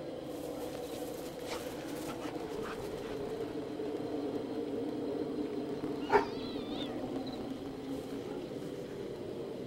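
A dog gives one short, sharp yelp about six seconds in, over a steady low hum.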